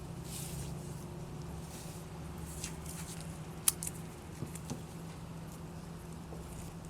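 Light rustling and scattered small clicks from a vinyl decal and masking tape being handled against a car window, with one sharp click a little over halfway through, over a steady low hum.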